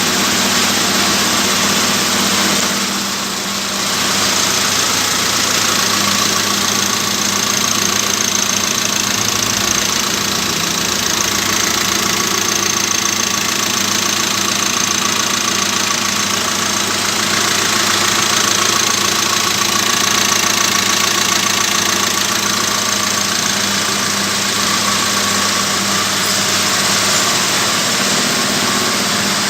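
Proton Exora's 1.6-litre turbocharged four-cylinder engine idling steadily on its first start-up after a top overhaul (new head gasket, valves and timing belt). A thin, high whine rides over the idle from a few seconds in.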